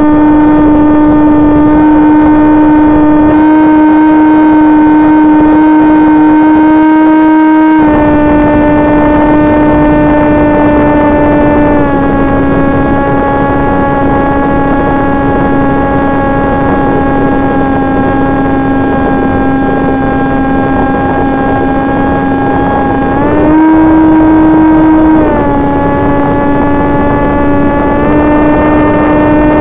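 Electric motor and propeller of an FPV flying wing, heard from on board as a steady high whine. Its pitch steps with the throttle: it drops a little about 8 and 12 seconds in, rises briefly around 23 seconds, and rises again near the end. A rushing noise runs underneath.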